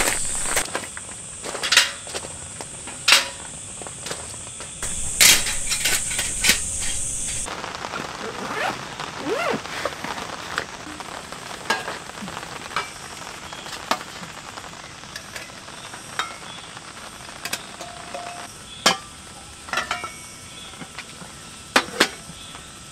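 Metal camp cups, bottles and other gear clicking and knocking as they are handled and set down on a camp table and cooler, a dozen or so sharp clinks spread through. An insect's steady high buzz runs underneath and stops abruptly about seven seconds in.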